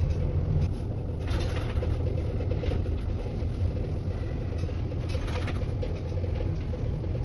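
Funicular railway car running along its track, heard from inside the cabin: a steady low rumble with a faint steady hum, and two brief rushes of higher noise, about a second in and about five seconds in.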